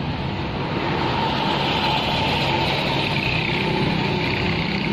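Truck engine idling with a steady low rumble.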